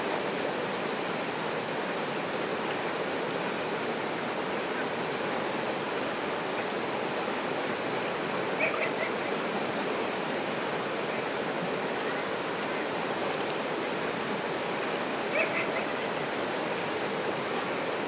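River rapids: water rushing steadily over and around boulders. Two brief faint high-pitched calls, about halfway through and again near the end.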